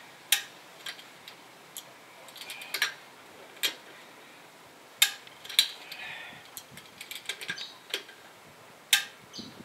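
Socket wrench clicking and metal clinking as the nuts holding a wheel spacer are run down onto the hub studs. The sharp clicks come singly and in short runs, with pauses between.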